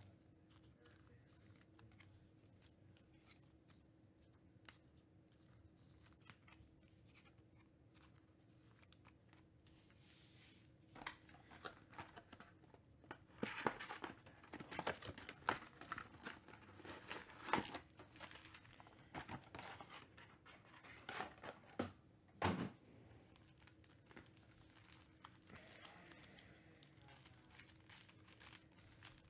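Hands tearing open a Panini Select UFC trading-card hobby box and handling its foil-wrapped packs: irregular bursts of tearing and crinkling starting about ten seconds in, with a sharp tear a little past two-thirds of the way, then softer rustling. Before that, only quiet room tone with a faint steady hum.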